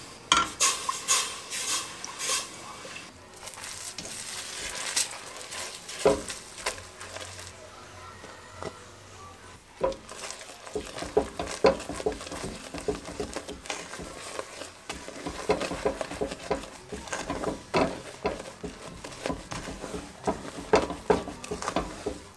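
Silicone spatula stirring and scraping in a stainless steel pot of bubbling caramelised sugar for honeycomb toffee, with a light sizzle. From about ten seconds in, quick, busy stirring strokes as the foamed toffee mixture is worked.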